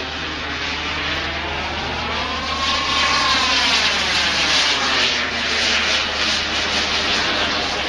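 Shok Jet radio-controlled model jet flying past, its engine running steadily. The pitch rises to a peak about three seconds in, falls away, then rises again near the end.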